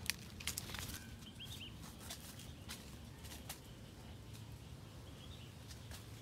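Scattered crackles and rustles of dry leaves and sticks as a puppy moves about in them, with a couple of faint bird chirps.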